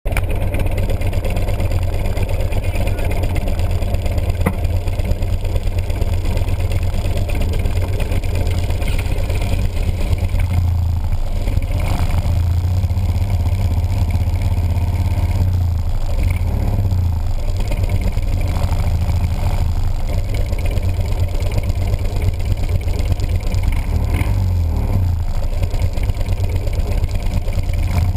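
Cruiser motorcycle engines idling with a steady low rumble close by, with a few swells as engines are revved and bikes pull away in a group.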